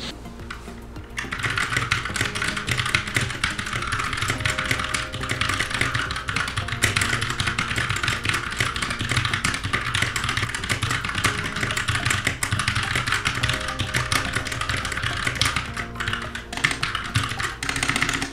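Fast ten-finger touch typing on a backlit computer keyboard: a dense, unbroken stream of key clicks that starts about a second in and stops just before the end. Background music plays underneath.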